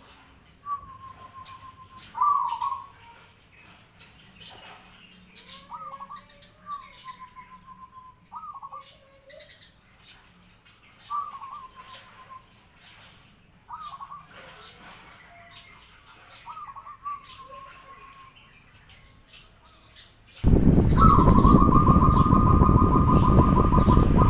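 Zebra dove (perkutut) cooing: short frilled coos repeated every two or three seconds. About twenty seconds in, a loud rushing noise sets in and covers the rest, with a rapid trilled coo on top.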